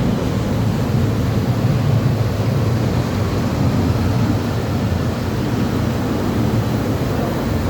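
Machinery of a PE film recycling washing line running with a loud, steady rumble and hiss, and no clear rhythm.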